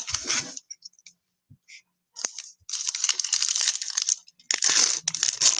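Trading card pack wrappers being torn open and crinkled, in bursts of rustling with a short lull of a few clicks about a second in.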